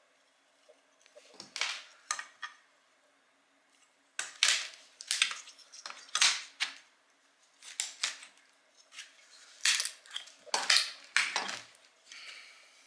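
Metal parts of a failed septic aerator air pump clinking and clanking as it is taken apart by hand: a dozen or so sharp knocks, a couple early on and a quicker run from about four seconds in.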